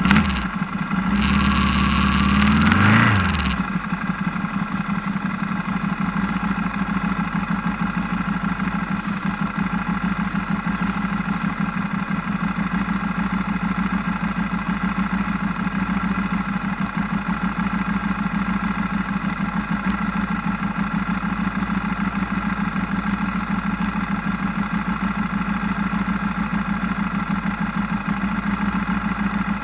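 A motorcycle engine revs, its pitch rising over the first few seconds. It then drops back and settles into a steady idle.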